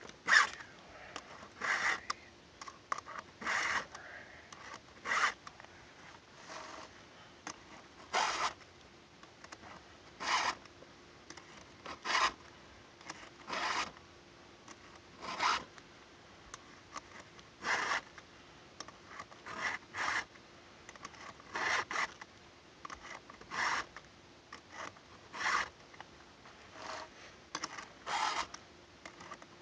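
A chainsaw file rasping across the cutters of a Stihl MS 290's chain, drawn through a Stihl filing guide in short strokes, about one every one and a half to two seconds, to sharpen each tooth.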